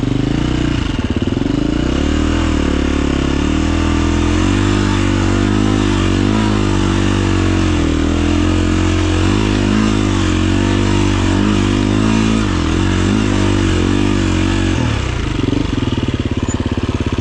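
Husqvarna FE 350 dirt bike's single-cylinder four-stroke engine revving under load up a steep rocky trail, its pitch rising and falling again and again as the throttle is worked. It settles to a steadier note near the end.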